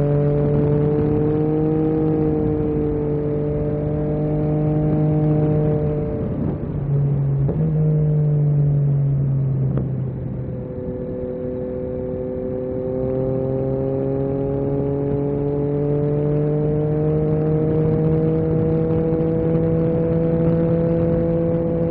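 Yamaha MT-09 SP's three-cylinder engine through an Akrapovic carbon exhaust, heard from the rider's position at road speed over a steady rush of wind. The engine holds a steady note, changes gear quickly about six to seven seconds in, and eases off around ten seconds in. It then pulls again, its pitch slowly rising.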